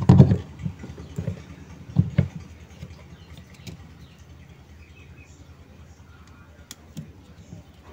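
Handling knocks and clicks as a washing machine gearbox, a plastic housing with a pulley, is pressed into place against the underside of the plastic tub and screwed in: a cluster of knocks at the start, two more about two seconds in, then fainter scattered clicks.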